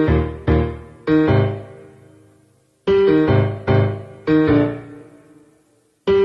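Background music: piano chords struck in short groups of about three, each chord ringing out and fading before the next group.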